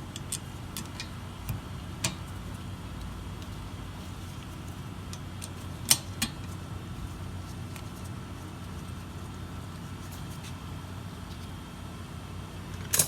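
Scattered sharp metallic clicks and taps of hand tools and caliper bolts being handled while a rear brake caliper is bolted back on. The loudest comes about six seconds in and a quick cluster near the end, all over a steady low hum.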